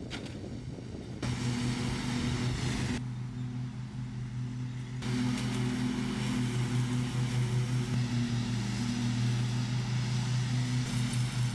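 Husqvarna riding lawn mower's engine running at a steady pitch while mowing grass, getting louder about a second in.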